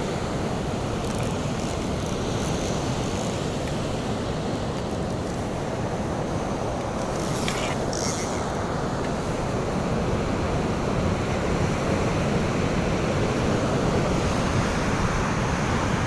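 Heavy sea surf breaking on a sand beach: a steady, continuous wash of waves.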